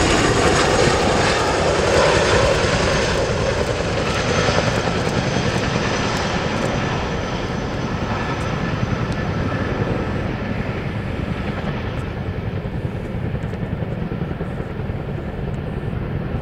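RAF Chinook twin-rotor helicopter flying past and away: a steady rotor beat with a high turbine whine that slides down slightly, the whole sound slowly fading.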